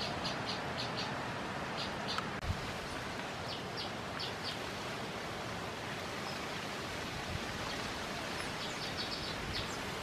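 Baya weaver giving short, high chirps in quick clusters of two to five, over a steady hiss.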